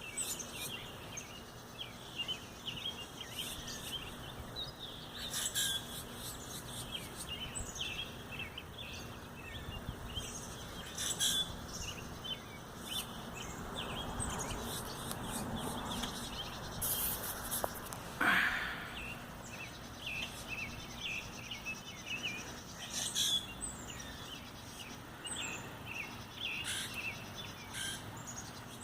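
Small birds chirping continuously in quick short notes, with louder, higher calls breaking in every few seconds. A brief falling sweep a little past the middle is the loudest moment.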